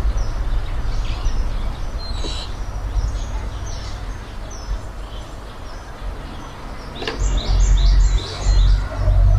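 Small birds chirping repeatedly over a steady low rumble, which grows louder in the last couple of seconds.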